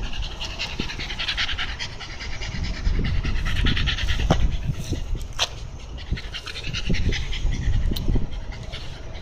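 Shiba Inu panting in quick, rapid breaths, in several spells with short pauses between them, over a low rumble.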